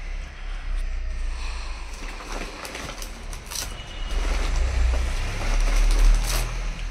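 A low steady rumble, loudest near the end, under the rustle of a plastic sack and a few knocks as kite-string spools are pulled out of it and set down.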